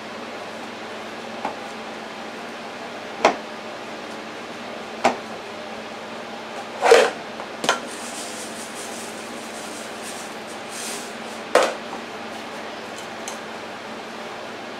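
Hand-mixing a kielbasa and panko breadcrumb mixture in a ceramic bowl: about six scattered knocks and clinks against the bowl, the loudest about seven seconds in, over a steady background hum. A faint soft hiss from about eight to eleven seconds in as breadcrumbs are shaken in from a canister.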